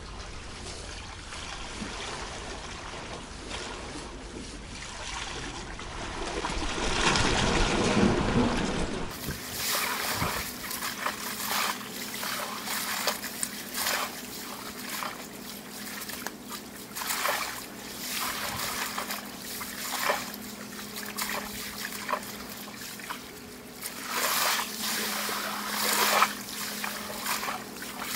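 Sea water washing and lapping against a rocky shore, with a wave surging up about seven seconds in. From about nine seconds the sound is fast-forwarded, so the lapping turns into a quick run of small splashes and trickles over a faint steady drone.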